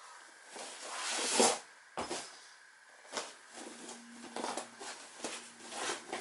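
A body shifting and rubbing on a vinyl-covered folding exercise mat as hands and knees are set down on it: a swelling rustle about a second in, which is the loudest moment, a sharp knock near two seconds, then a run of shorter thumps and rubs.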